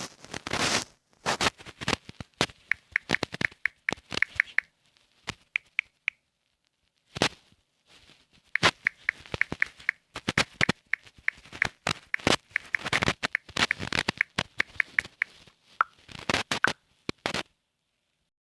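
Fingers tapping quickly on a smartphone's touchscreen keyboard, each tap a short sharp click, in irregular runs with a brief pause in the middle, stopping near the end.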